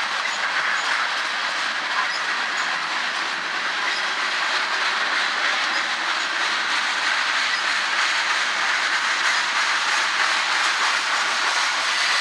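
Aluminum coal cars of a freight train rolling past: steady noise of steel wheels on rail, with faint repeated clicks from the wheels over the rail joints.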